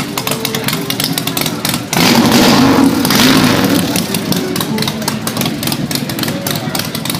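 A motorcycle engine revs up loudly for about two seconds, starting about two seconds in, over a steady background of outdoor crowd noise and clatter.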